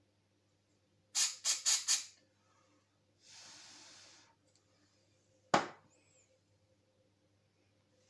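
Handling noises from small hair dryer parts being worked on: four quick scraping strokes about a second in, a one-second hiss, then a single sharp click.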